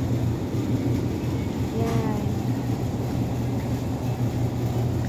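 Steady low machine hum of a supermarket's background drone, with one short vocal sound about two seconds in.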